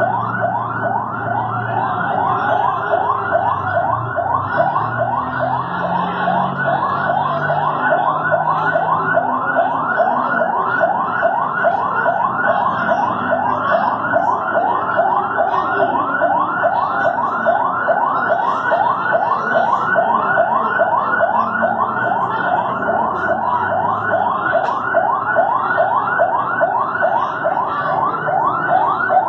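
Siren sounding in a fast yelp, rapid rising sweeps repeating about three times a second without a break.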